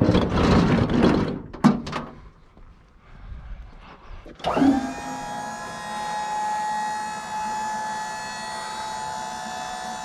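Knocks and clatter as a heavy item is rolled onto a truck. About four seconds in, an electric motor starts with a brief glide in pitch, then runs with a steady whine for about six seconds before stopping.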